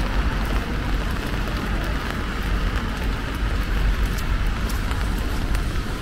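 Rain and road traffic on a wet street: a steady, even wash of noise over a constant low rumble, with scattered faint ticks.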